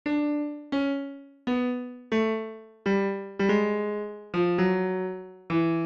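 FL Studio's FL Keys virtual piano sounding single notes one at a time, about nine in all, stepping down a scale, each struck and left to fade before the next. The notes of the scale are being played in one by one to map it out on the piano roll.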